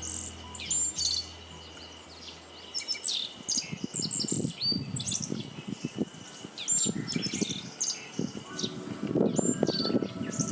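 Wild birds chirping and calling, many short high notes and whistles overlapping in a chorus. In the second half there are low rumbling bursts underneath.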